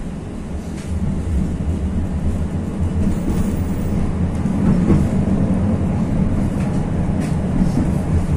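71-623-02 (KTM-23) tram running along the track, heard from inside the car: a steady low rumble of wheels and running gear that grows louder about a second in as the tram picks up speed, with a few faint clicks.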